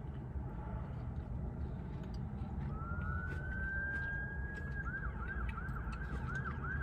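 Emergency vehicle siren in the background: a rising wail that holds steady, then switches to a fast yelp of about three sweeps a second near the end, over a low steady rumble.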